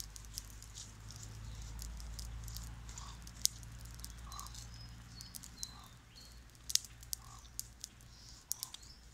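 Wood campfire crackling with scattered sharp pops, over a low steady hum. A bird gives a soft short call about every second and a half, and small birds chirp now and then.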